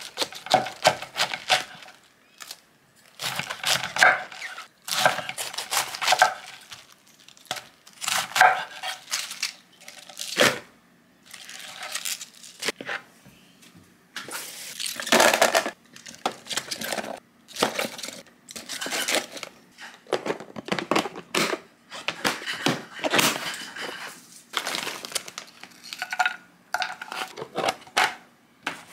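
Kitchen prep handling sounds: plastic packaging crinkling and tearing, with dishes and utensils clinking in quick irregular clicks. Near the end, rice cakes are tipped from a plastic bag into a glass measuring cup of water.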